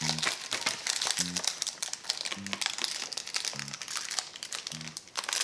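Plastic candy wrapper crinkling continuously and irregularly as it is handled and pulled open.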